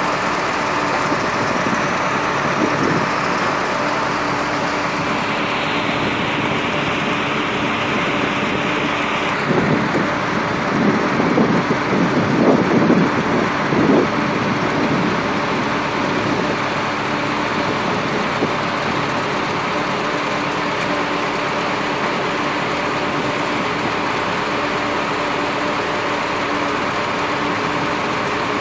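Reed-harvesting boat's engine and conveyor machinery running steadily. From about ten to fourteen seconds in there is a louder, uneven stretch as cut reeds are carried up the conveyor.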